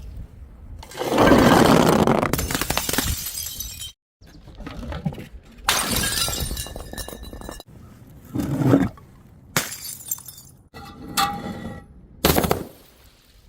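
Glass bottles smashing one after another in a string of separate clips, each a sharp crash followed by shards clinking and ringing; the biggest crash comes about a second in.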